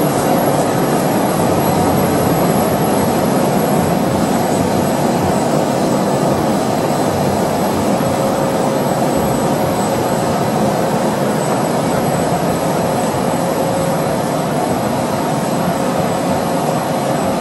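ORTHOTEC CSL roll-fed label letterpress running, a loud, steady, even machine noise with a faint constant high whine over it.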